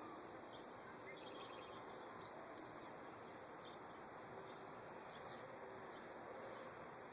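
A bird gives a short, high chirp about five seconds in, over faint outdoor background noise with a few fainter high chirps.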